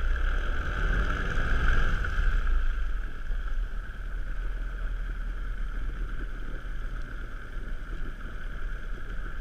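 Speedboat's outboard motor running, heard from aboard, with a steady whine and low rumble and wind on the microphone. It drops a little in level after about two and a half seconds.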